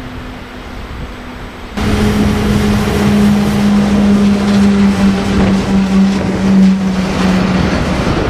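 Freight train hauled by SBB electric locomotives passing close by. The sound jumps in suddenly about two seconds in as the locomotives draw level, with a steady low hum over the noise of the train running.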